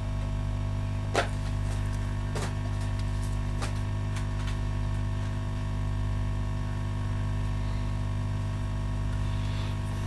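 Steady electrical mains hum with a few faint clicks about a second apart in the first four seconds.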